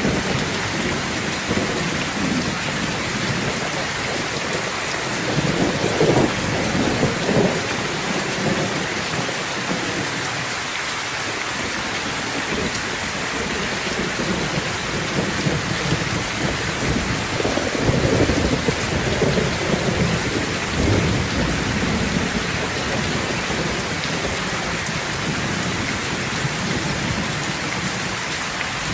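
Steady heavy rain falling, with rolls of thunder rumbling low beneath it, strongest a quarter of the way in and again past the middle.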